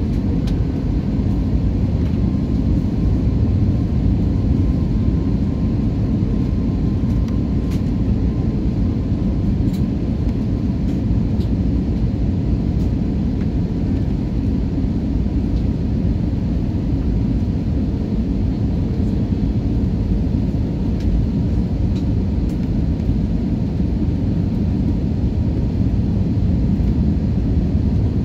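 Cabin noise inside an Airbus A321-231 airliner on approach: a steady deep rumble of airflow and its IAE V2500 turbofan engines. A faint thin tone rides over it for the first several seconds.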